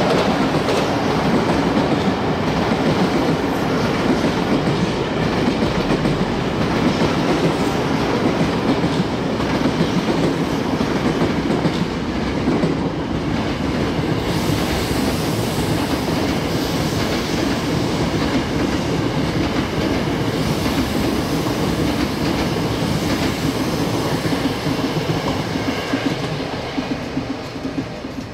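Electric commuter trains running on the Chūō Line tracks below: a steady rumble of wheels on rail with some clatter, loud throughout and fading away near the end.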